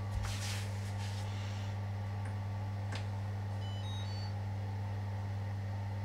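Electrolux EW7H578S PerfectCare 700 tumble dryer's control panel giving a short run of electronic beeps that step upward in pitch as its buttons are pressed, over a steady low hum.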